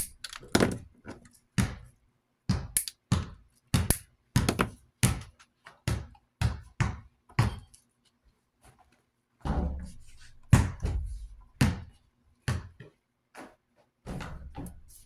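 Irregular sharp knocks and clicks of metal desk-fan parts being handled and worked with tools while the oscillation knob is refitted. There are a couple of longer, lower rubbing sounds, one about two-thirds of the way through and one near the end.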